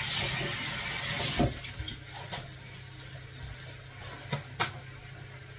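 Kitchen tap running for about the first second and a half, then shut off, followed by a few sharp clicks and knocks, over a low steady hum.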